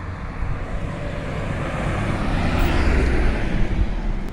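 Street traffic noise: a steady rumble and tyre hiss that swells to a peak about three seconds in as a vehicle goes by, then eases a little.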